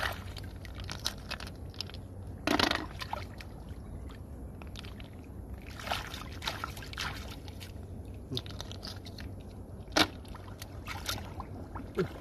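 Bare hands sloshing and splashing in shallow muddy water, scooping mud in irregular bursts, with the loudest splash about two and a half seconds in and a sharp one near ten seconds.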